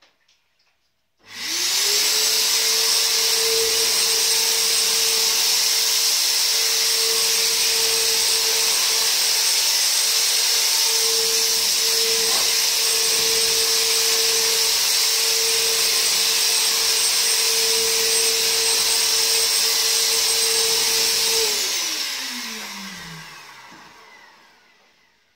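Handheld electric insecticide fogger (ULV cold fogger) running while spraying: its motor spins up about a second in, runs with a steady whine and hiss, then is switched off near the end and winds down with falling pitch.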